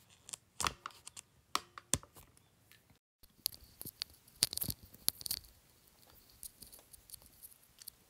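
Handling noise close to the microphone: scattered clicks, taps and scratchy rustles as a phone and wired earphones are handled. The sound cuts out completely for an instant about three seconds in.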